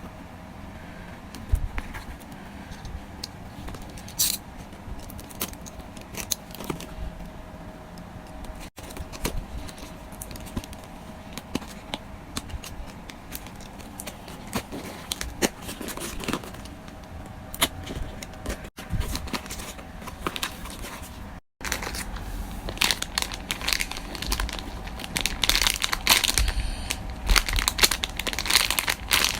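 Parcel packaging being handled and opened: plastic wrapping and tape crinkling and tearing in irregular rustles and snaps, busier and louder over the last several seconds.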